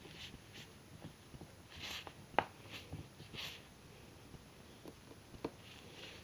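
Hands handling a plastic hair-dye bottle and its cap or tube: soft scrapes and rustles, with a sharp click a little over two seconds in and a smaller click about five and a half seconds in.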